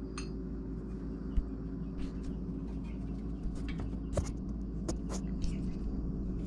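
Small metal clicks and taps of a bolt being fitted into a welded steel alternator bracket, with one knock about a second and a half in, over a steady low hum.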